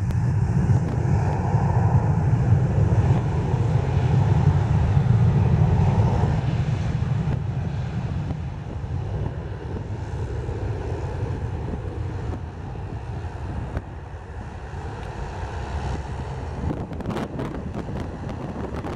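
Airliner engines running at an airport: a loud, low rumble for the first several seconds that then eases off, with wind buffeting the microphone.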